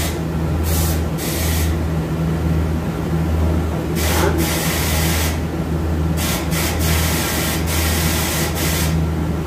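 Steady low machine hum in a workshop, overlaid by short, irregular bursts of hiss, about a dozen, each under half a second long.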